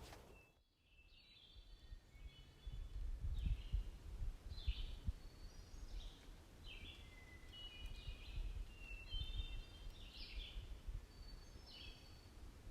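A songbird singing short, repeated phrases of quick stacked notes about once a second, over a low, uneven rumbling noise; the sound drops out briefly about half a second in before the song starts.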